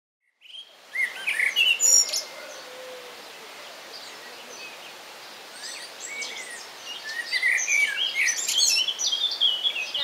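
Songbirds chirping and singing over a steady outdoor hiss. A loud burst of calls comes about a second in, then it goes quieter, and busier song builds over the last few seconds.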